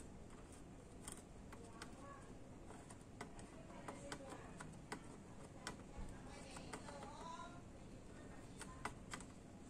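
Faint, scattered light clicks and ticks of metal tweezers and a soldering iron tip working on a circuit board while a flash memory chip is desoldered, over low room tone.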